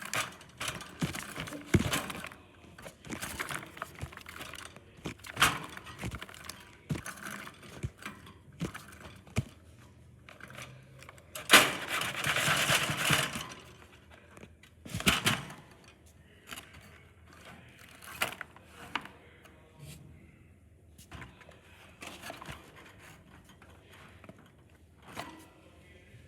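Lovebirds moving about their cage without calling: irregular clicks, taps and rustling, with a louder rustling stretch about eleven seconds in.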